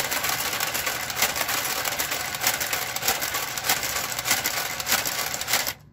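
Brother garter carriage running along a knitting machine's needle bed: a steady mechanical whir with many rapid clicks. It cuts off suddenly near the end as the carriage is stopped.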